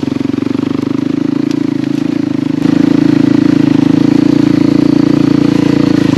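Honda CRF250L dirt bike's single-cylinder four-stroke engine running steadily under light throttle while the bike rolls along, its exhaust loud; the engine note gets louder about two and a half seconds in as the throttle opens.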